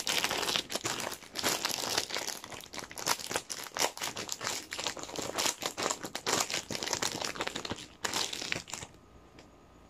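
Clear plastic packaging bag crinkling as it is handled, a busy crackle that stops a little before the end.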